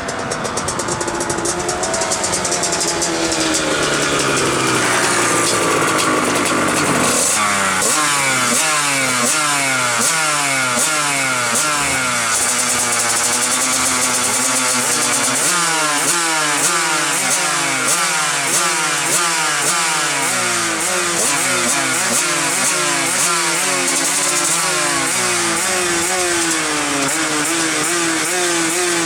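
125cc two-stroke motorcycle engine. Its pitch falls over the first several seconds, then it revs up and drops back again and again, roughly once a second, while riding hard.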